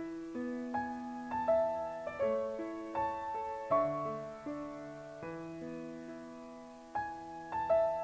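Gentle background piano music: single notes and chords struck at an unhurried pace, each ringing and fading.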